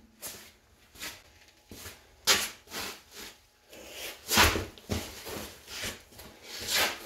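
Irregular scuffs, knocks and rubbing as a large ATV tire is handled and moved about, with footsteps on a concrete floor; the louder knocks come about two seconds in and again about four seconds in.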